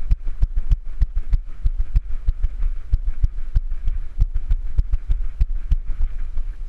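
A Great Dane's feet pounding the ground at a run, picked up through a GoPro strapped to her back: a fast, rhythmic string of heavy low thuds, about four or five a second, that eases off near the end as she slows.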